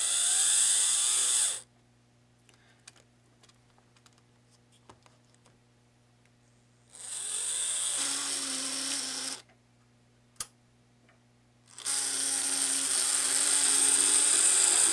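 1960s Lindberg HO-scale switcher locomotive running on the track: its small electric motor, gears and belt drive whir with a high whine in three spurts. The first stops about a second and a half in, the next runs from about seven to nine seconds, and the last starts about twelve seconds in. A steady low hum sits underneath, and the motor's bearings are worn.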